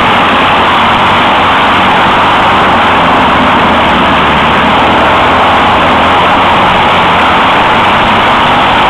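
A racing kart's Citroën flat-twin engine of the 602/652 class running hard, loud and steady, heard from the onboard camera with wind noise over it.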